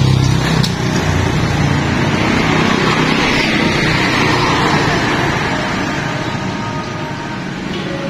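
Road traffic noise: a passing vehicle swells up in the middle and slowly fades away.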